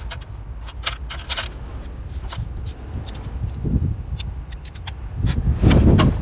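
Small metal clicks and clinks of tools and parts being handled during motorcycle engine work, over a steady low rumble, with a louder low rumbling swell near the end.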